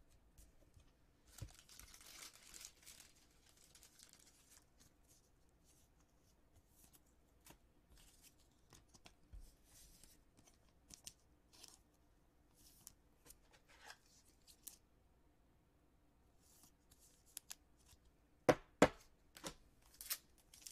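Trading card pack wrapper torn open in a short rip about two seconds in, followed by faint crinkling and handling sounds, with a few sharp clicks near the end.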